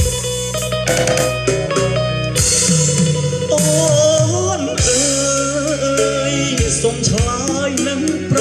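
Khmer pop song playing: guitar and band accompaniment, with a sung vocal line coming in partway through.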